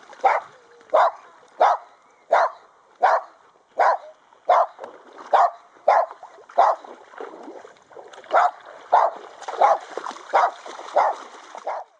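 Dog barking repeatedly in a steady rhythm, about one bark every two-thirds of a second, with a short pause about seven seconds in.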